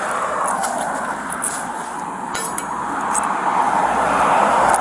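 Traffic passing on the road, a steady tyre-and-engine rush that swells toward the end, with a few light metallic clicks of handcuffs being ratcheted on.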